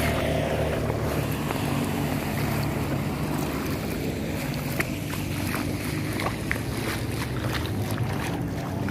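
A motor engine running steadily while floodwater rushes and splashes, with a few short sharp splashes or knocks about five and six and a half seconds in.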